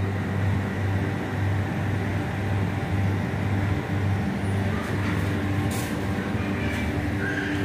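Steady low mechanical hum with a fainter higher tone held above it, over a wash of machine noise; a couple of faint clicks in the second half.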